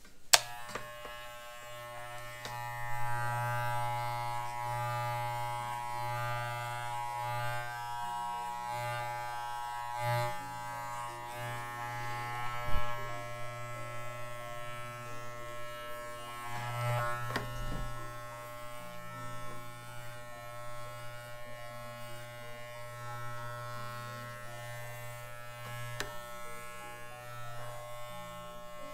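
Electric pet hair clippers running with a steady buzz while clipping a miniature schnauzer's coat. The buzz wavers a little in loudness as the blade moves through the fur, with a sharp click just after the start and another about halfway through.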